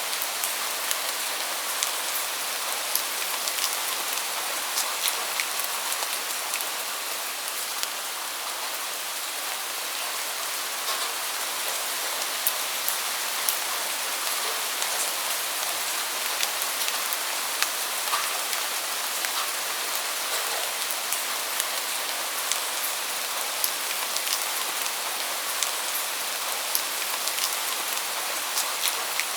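Steady rain falling, an even hiss with many sharp drop ticks scattered through it.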